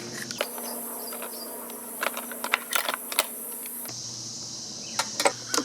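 Light clicks, taps and rattles of parts and a hand tool being handled as the engine cover is refitted over the ignition coil. The clicks come in scattered clusters, a few around the middle and a couple of sharper ones near the end.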